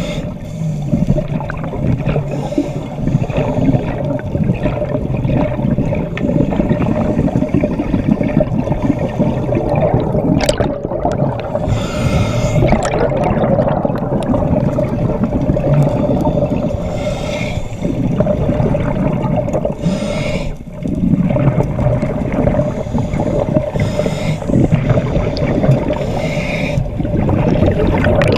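Underwater sound of scuba divers breathing through regulators: exhaled bubbles gurgle and rush past in bursts every few seconds, over a dense low rumble and a steady hum.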